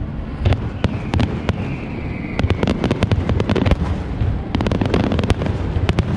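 Aerial fireworks going off: a run of sharp bangs and crackles, with a faint falling whistle about a second in and dense crackling volleys in the middle and again near the end.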